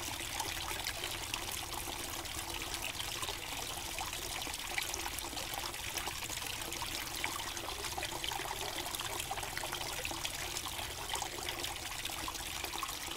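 Water trickling and splashing steadily from a small waterfall spout into a backyard pond.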